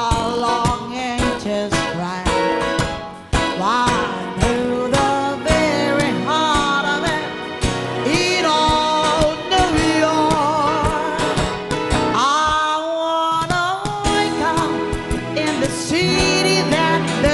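A woman singing a slow, gliding lead vocal over live band music: keyboard, electric guitar and a steady beat.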